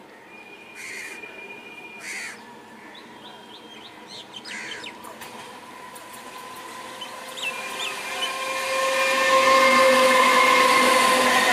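Electric multiple unit suburban train approaching and passing close by: a steady electric whine over wheel-on-rail noise, growing much louder from about seven seconds in. Birds chirp a few times in the quieter first half.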